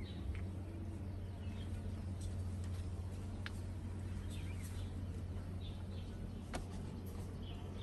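Outdoor ambience: a steady low rumble with faint, short high chirps scattered throughout, and a couple of sharp clicks, one about three and a half seconds in and one about six and a half seconds in.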